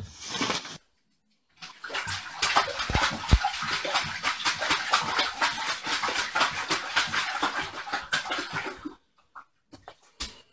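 A dog lapping water from a toilet bowl: a long run of quick, splashy laps that starts about one and a half seconds in and stops about nine seconds in.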